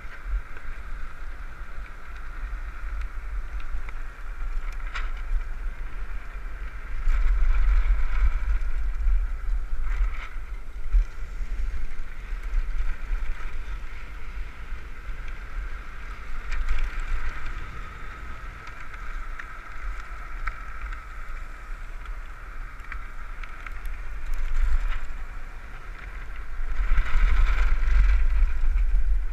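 Wind buffeting the microphone of a camera mounted on a land yacht running fast over hard beach sand, over a steady rushing hiss from the ride. It swells louder about seven seconds in and again near the end.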